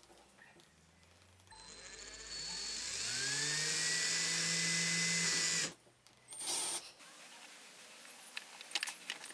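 Aldi Workzone 18V cordless drill, fitted with a replacement RS550 motor, running free with its new keyless chuck. It gives a rising whine as it speeds up, holds steady for about two seconds, then stops abruptly. A few light clicks follow near the end.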